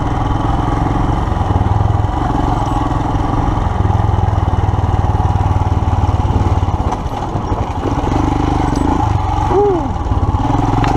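Royal Enfield Himalayan's 411 cc single-cylinder engine running as the bike is ridden up a dirt trail, the throttle easing off for a moment about seven seconds in before picking up again.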